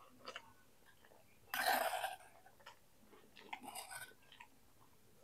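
A person chewing fried tempeh close to the microphone: soft wet mouth clicks and smacks, with a louder noisy burst about a second and a half in and another cluster of sounds around three and a half seconds.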